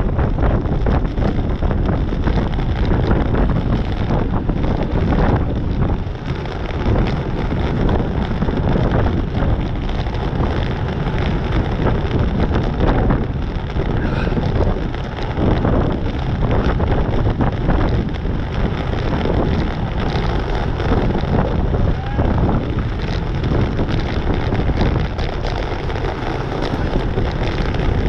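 Wind buffeting the microphone of a camera riding on a road bicycle at about 24 mph: a loud, steady rushing rumble with irregular gusts.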